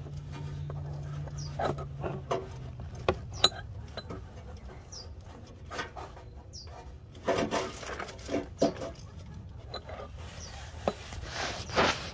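Scattered light clicks, taps and rubbing of hands working at an oxygen sensor's plastic wiring connector and its retaining clip under a car, with a busier run of knocks about seven to nine seconds in.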